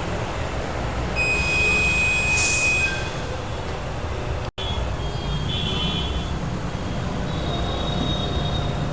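Tyre-workshop machinery noise: a steady low hum with thin high whines that come and go, and a short hiss about two and a half seconds in.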